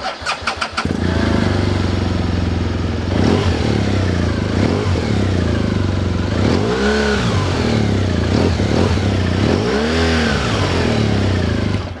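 A 2018 BMW R1200GS Adventure's liquid-cooled boxer twin on its stock exhaust. The starter cranks for under a second, then the engine catches and idles. It is revved twice in the second half, each rev rising and falling back to idle.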